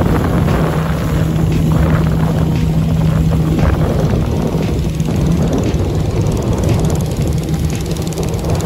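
A boat motor running at a steady, unchanging pitch while the boat moves along the river, with water rushing and splashing along the hull.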